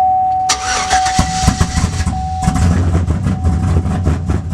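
Cammed V8 (BTR stage 4 truck cam kit) cranking and firing up, settling into a steady, lumpy idle on its new high-pressure Melling oil pump. A steady electronic chime fades out as the engine catches.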